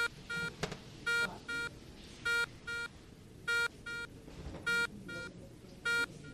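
Hospital electronic alarm beeping in pairs of short, steady-pitched tones, a pair about every 1.2 seconds, over a low room murmur. There is a single click about two-thirds of a second in.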